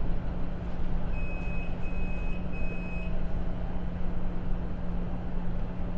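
A steady low hum over a dense rumble, with three short high-pitched beeps in a row about a second in.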